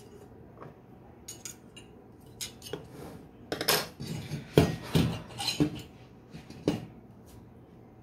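Metal clinking and clattering as the finned anode of a dismantled microwave-oven magnetron and steel hand tools such as pliers are handled and set down on a table. It is a run of sharp clinks, loudest and busiest in the middle.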